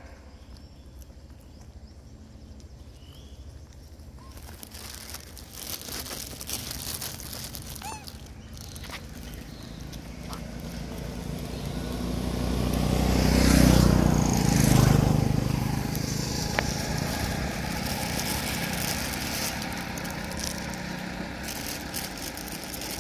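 A motor vehicle passes along the road: its engine and tyre noise build gradually, are loudest about two-thirds of the way through, then fade. A few faint clicks come before it.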